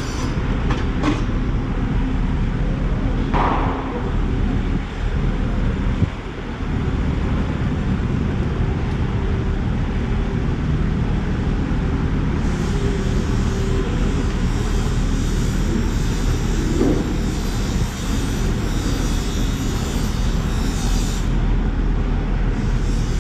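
Steady low rumble of background noise, engine-like in character.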